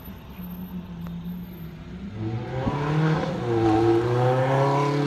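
Ferrari F430's V8 engine accelerating. It starts as a faint hum and grows louder about halfway through, its pitch climbing and wavering as the car pulls away.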